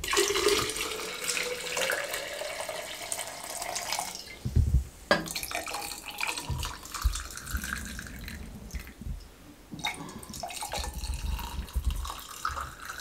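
Water poured from a glass jug in three pours, first into a glass pitcher of jaggery syrup and then into two tall glasses, splashing as it goes. The pitch of the first pour rises as the pitcher fills. Brief pauses with low knocks fall between the pours.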